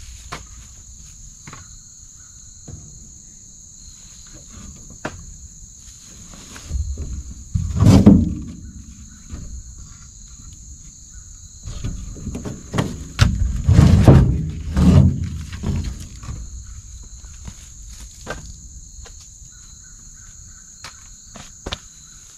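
A steady, high-pitched insect chorus chirring throughout, broken by knocks and thumps, the loudest about a third of the way in and a cluster a little past the middle.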